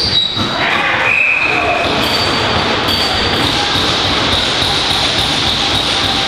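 Spectators and players cheering and shouting right after a box lacrosse goal, a continuous din of voices echoing in a large indoor arena.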